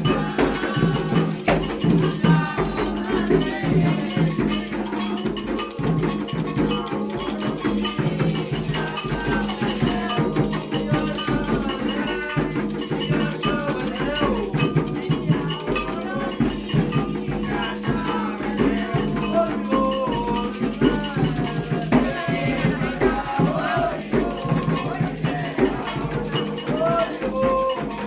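Candomblé ritual music: hand drums beating a steady rhythm with a clanging agogô-type bell pattern on top, and voices singing over it.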